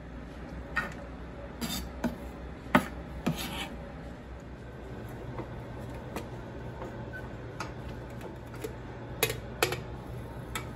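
Kitchenware being handled: scattered sharp clicks, knocks and scrapes of a plastic scraper on a cutting board and of a stainless-steel pressure cooker lid being turned and lifted off its pot. The loudest knock comes about three seconds in, and a pair of clicks comes near the end.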